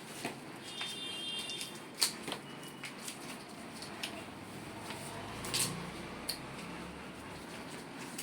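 Quiet handling noise: scattered small clicks and taps, the sharpest about two seconds in, with a brief high squeak about a second in.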